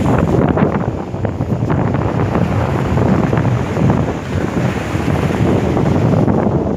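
Wind buffeting the microphone, rising and falling, over the wash of breaking surf.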